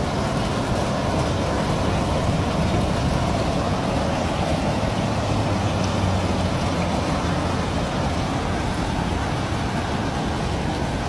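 Steady rush of floodwater pouring into a cleared street drain.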